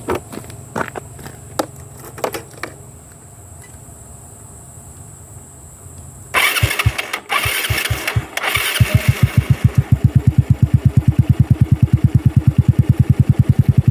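Motorcycle with a Sun Racing V2 adjustable exhaust set fully open, started up: a few clicks, then the starter cranks for about two seconds and the engine catches about nine seconds in. It settles into an idle with a steady, fast, even exhaust beat through the open pipe.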